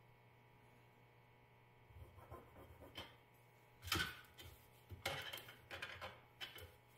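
A metal combination square being handled on a sheet of thin sheet metal: a sharp clank about four seconds in as it is set down, then several light clicks and scrapes as it is shifted along the edge.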